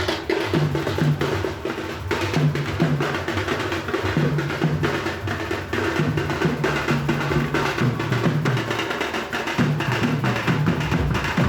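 Dhol drums playing a fast, driving wedding beat of dense, evenly repeating strokes.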